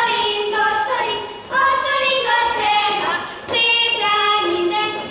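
Young girls singing a Hungarian folk children's game song together in short sung phrases, pausing briefly between phrases.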